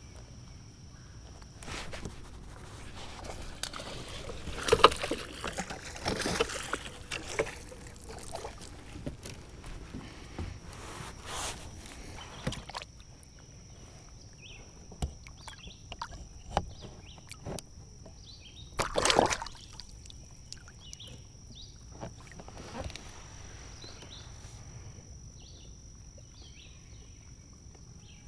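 Water sloshing and splashing against the side of a kayak, with a few hollow knocks on the hull, as a caught fish is held in the water and released; the loudest splashes come about five and nineteen seconds in. A thin steady high-pitched whine runs underneath, and short faint chirps come in the second half.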